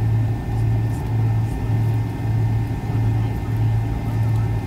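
Cabin noise of a McDonnell Douglas MD-83 taxiing with its tail-mounted Pratt & Whitney JT8D engines at idle: a steady rumble with a low hum that throbs about twice a second.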